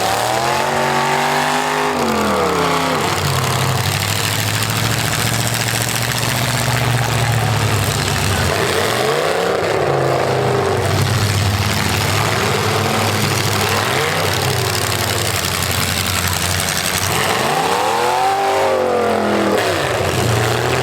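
Full-size V8 demolition derby car engines revving hard over and over, the pitch climbing and falling four or five times over a continuous din of engines.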